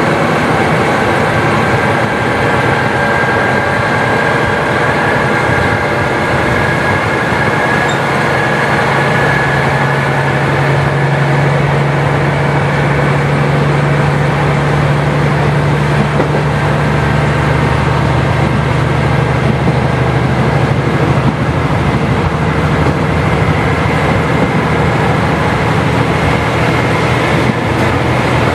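KiHa 40 diesel railcar running along the line: steady diesel engine drone over wheel and rail noise, with a thin steady whine above it. The engine note swells about a third of the way in and eases again after about two thirds.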